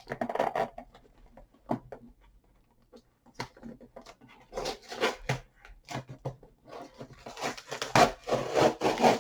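Cardboard shipping box being opened by hand: packing tape pulled and torn, and cardboard scraping and rubbing in short irregular bursts that get busier and louder near the end.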